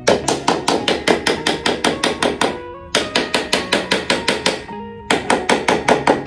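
Small hammer tapping rapidly, about five strikes a second, on a wooden crossbar to seat it into the slots of a wooden horseshoe-shaped frame, in three runs with brief pauses about three and five seconds in. Background music with sustained guitar-like notes plays underneath.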